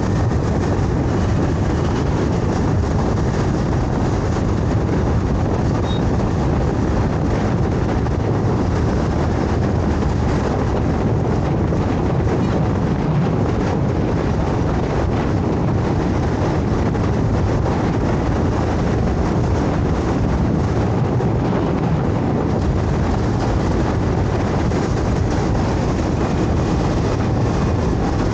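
Scooter being ridden on city roads: a steady, unbroken rush of engine, tyre and wind noise with no distinct events.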